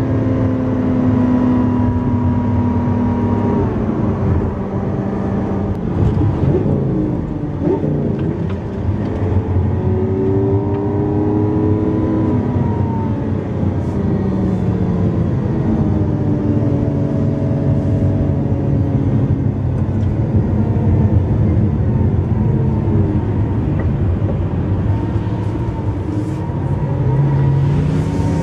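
Lamborghini Aventador LP700-4's V12 engine under way, its pitch rising and falling several times as the car speeds up, eases off and changes gear.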